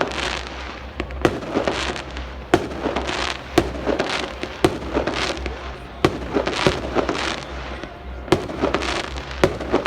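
Fireworks display going off continuously: a quick run of sharp bangs, one every half-second to second, with crackling between them.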